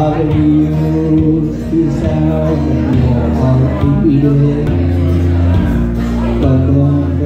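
Karaoke backing track playing through a PA, with a steady bass line and guitar, and a man singing into a microphone over it.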